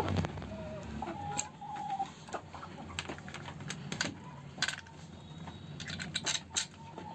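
Hens in a coop: a couple of short, even-pitched calls in the first two seconds, with a scatter of sharp clicks and taps throughout, the loudest right at the start and about four seconds in.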